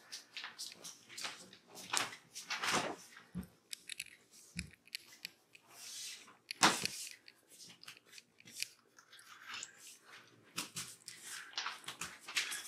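Kittens crunching dry kibble: irregular crisp crunches and clicks, one louder crunch near the middle.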